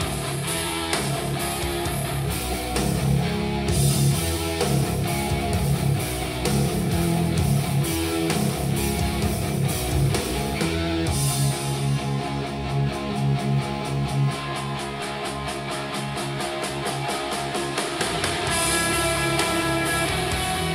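Guitar-driven rock music played back through a portable Bluetooth speaker and recorded by microphone, with strummed guitar over a steady beat.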